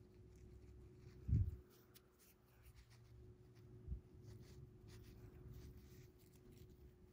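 Faint handling noise of fingers working a fishing line into a knot: light rubbing and small ticks. A soft low thud about a second and a half in is the loudest sound, a smaller one comes near four seconds, and a faint steady hum runs underneath.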